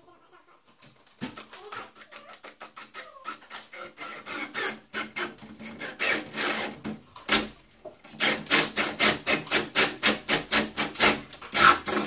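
DeWalt XR cordless combi drill boring into the edge of a wooden door with a flat wood bit, cutting out the pocket for a mortice lock case. The cutting comes as a fast rhythmic rasping of about four pulses a second, starting about a second in and growing louder in the second half.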